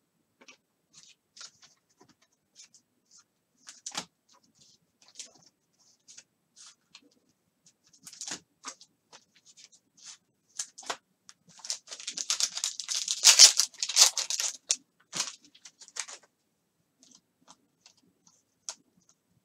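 Foil trading-card pack of Panini Mosaic basketball being torn open and its wrapper crinkled: a dense crackling rustle from about twelve seconds in lasting some three seconds, with scattered small clicks and rustles of handling before and after.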